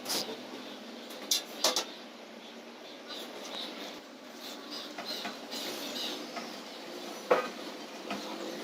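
A few sharp knocks and clinks, four in all with the loudest near the end, over a steady background hiss.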